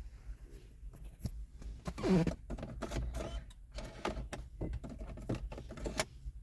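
A series of irregular clicks and knocks, with a short louder burst about two seconds in, over a low steady hum.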